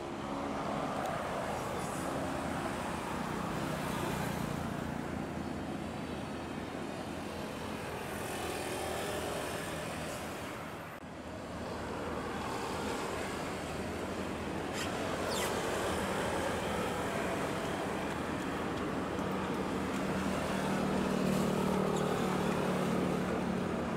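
Steady hum of idling engines over a wash of harbour traffic noise, with a few faint knocks.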